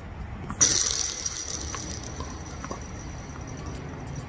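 A sudden metallic clash about half a second in, followed by a high ring that fades away over about three seconds.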